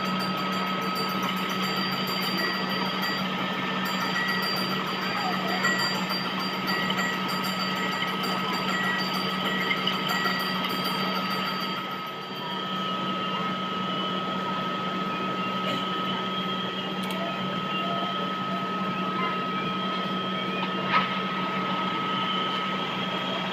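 Metal lathe running steadily while a tool turns a cylindrical sleeve held in its chuck: a steady low hum with a thin high whine over it, and one sharp click near the end.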